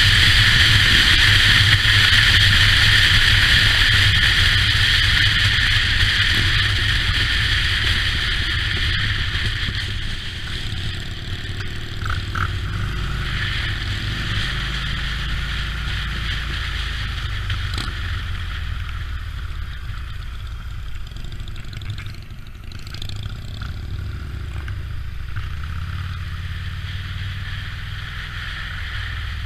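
Motorcycle riding: heavy wind rush on the bike-mounted camera over the steady low note of the engine. About a third of the way in the wind noise fades as the bike slows, leaving the engine running at lower road speed with a few shifts in pitch.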